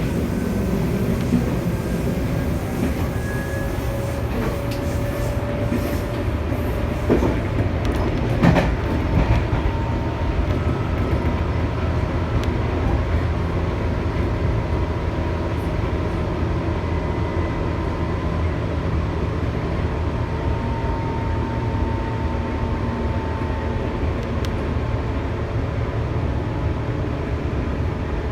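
Tobu 8000 series electric train running: a steady rumble with faint whining tones that slowly drift in pitch. A couple of sharp knocks come about seven and eight and a half seconds in.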